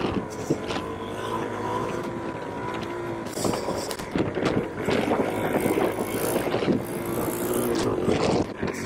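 Suzuki DR-Z400SM's single-cylinder four-stroke engine running under a rider, its note rising and falling several times as the throttle is opened and closed.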